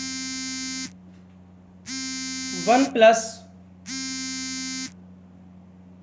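An electronic buzzer beeping, about one second on and one second off, three beeps in all, over a steady electrical hum.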